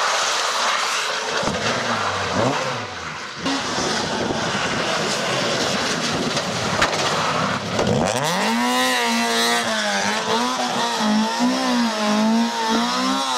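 Rally cars on a soaking wet tarmac road: first a steady hiss of tyres and spray with engine noise underneath. From about eight seconds in, a Honda Civic rally car's four-cylinder engine is held at high revs, its pitch wavering up and down as the throttle is worked through the bend.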